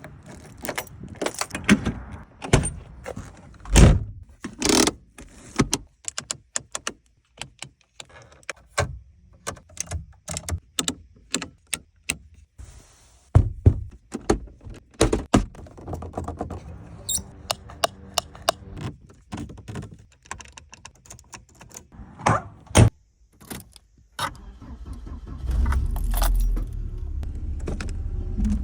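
A long series of separate clicks, knocks and clunks from the interior controls and plastic fittings of a 1994 Volvo 940 being worked by hand, with keys jangling at times. Near the end a low steady rumble sets in.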